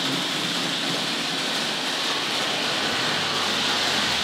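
Hornby Dublo A4 Pacific model locomotive, with its horseshoe-magnet motor, running with tinplate coaches on tinplate three-rail track: a steady rushing noise of metal wheels on the rails and the motor.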